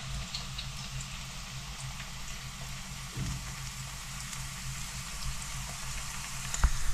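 Mushrooms frying in a pan: a steady sizzle with a low hum beneath it, and a sharp click near the end.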